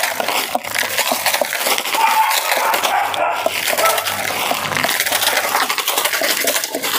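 A dog lapping water from a stainless steel bowl: a rapid run of wet laps and small clinks against the metal.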